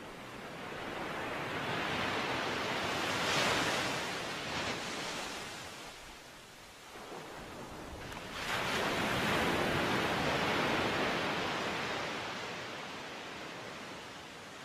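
Rushing outdoor noise that swells and fades twice, each swell lasting about five seconds.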